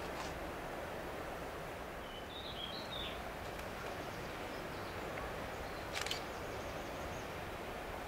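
Steady outdoor background noise with a short burst of bird chirping about two seconds in, and a single sharp click about six seconds in.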